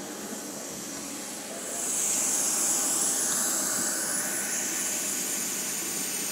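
Airliner's turbine running on the ramp: a steady hiss with a thin high whine that slowly falls in pitch. The hiss swells louder about two seconds in.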